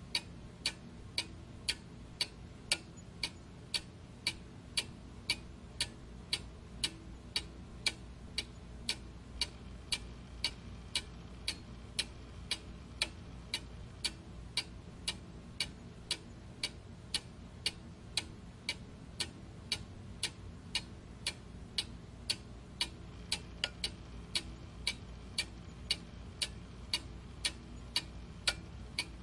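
Steady, even ticking, about two ticks a second, over a faint low hum.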